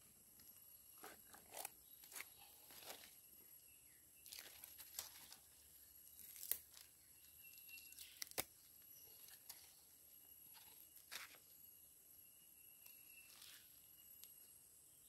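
Faint, scattered scrapes and clicks of a rubber tapper handling a latex cup and tapping knife at the base of a rubber tree, a dozen or so short sounds with quiet gaps between them.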